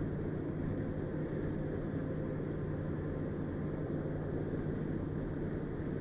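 A vehicle engine running steadily: a constant low drone with an even rumble and no change in speed.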